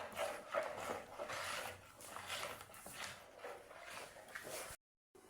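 Custard mix being stirred in a bowl: repeated scraping strokes, roughly two a second, which cut off abruptly near the end.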